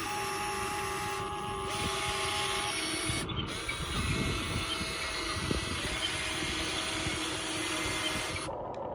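Radio-controlled excavator working: the steady whine of its electric motors and drive, changing pitch about two to three seconds in, with a few low knocks from the machine moving.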